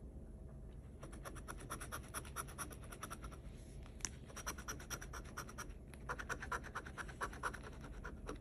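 Metal bottle opener scraping the scratch-off coating from a paper lottery ticket in rapid back-and-forth strokes, in three runs with short pauses between them. There is a single sharp click about four seconds in.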